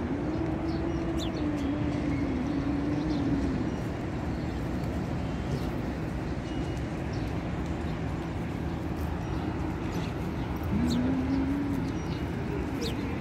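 Open-air street ambience: a steady rumble of road traffic with a few short bird chirps, and a long wavering tone held for a few seconds at the start and again briefly near the end.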